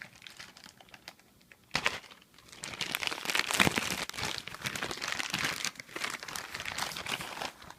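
Shipping packaging being handled and crumpled: a sharp crackle about two seconds in, then several seconds of continuous crinkling.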